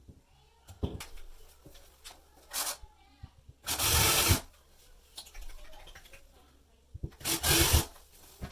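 Work noises at the drywall: a few light knocks and handling sounds, with two short harsh rasping bursts, each under a second, about four seconds in and again near the end.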